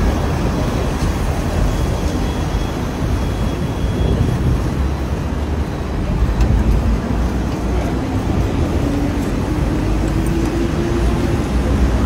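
Steady city street traffic: buses and cars passing on a multi-lane road, a continuous low rumble. In the second half a low hum slowly rises in pitch.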